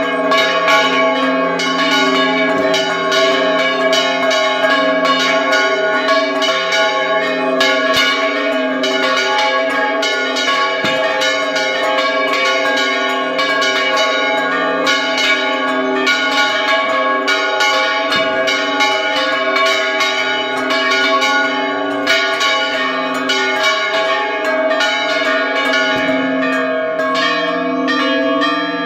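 Bronze church bells ringing a repique: several bells struck rapidly and irregularly, their tones overlapping into a continuous, loud ringing, heard up close in the bell tower.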